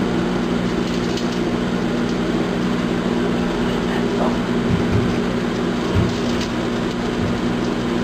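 Microwave oven running: a steady electrical hum with fan noise. There are a few faint ticks and a couple of low bumps.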